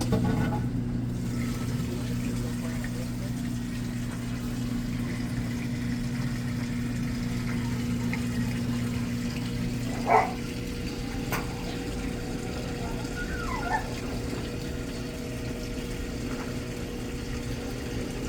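Washing machine drain pump humming steadily as water drains, with the drum not spinning when it should be in its spin cycle. About ten seconds in there is a knock and the hum changes pitch; a smaller click follows a few seconds later.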